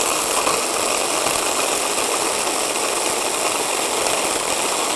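Electric hand blender with a chopper bowl attachment running steadily at full speed, grinding crisp toasted tilapia pieces into fine crumbs.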